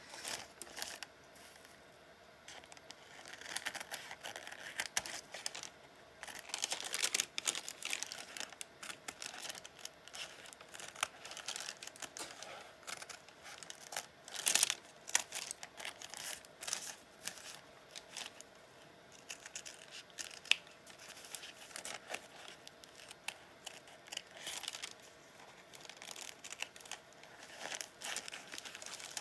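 Fiskars Easy Action scissors snipping through fabric and parchment paper in short, irregular cuts, with the paper crinkling as it is handled and turned.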